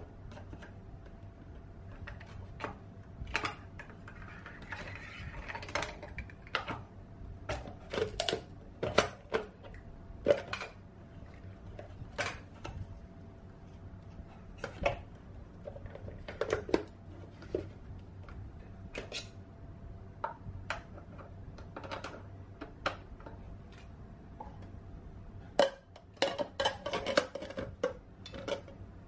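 Irregular hard plastic clicks and knocks as the lid and spring-loaded pusher of a manual shaved-ice maker are fitted and pressed down onto its chamber and the machine is handled, with a quick flurry of clicks near the end.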